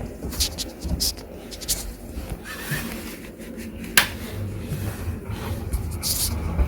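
Clipsal Airflow CE250 250 mm kitchen exhaust fan starting up: a sharp click about four seconds in, then its motor begins a steady low hum. The fan's bearings are badly worn. A few lighter clicks come earlier.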